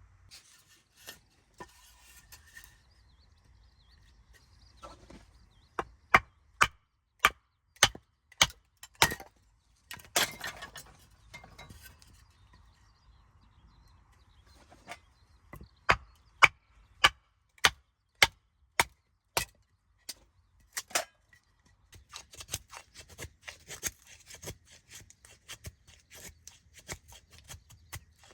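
Sharp knocks, about two a second, in two runs with a rougher scraping stretch between them, then a quicker, lighter clatter of small taps near the end.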